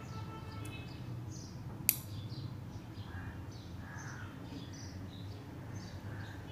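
Small birds chirping over and over, over a low steady hum. One sharp click about two seconds in.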